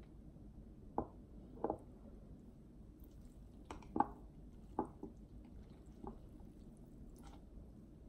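Close-up wet chewing of spicy fire noodles: a string of short, separate mouth sounds, the loudest about four seconds in.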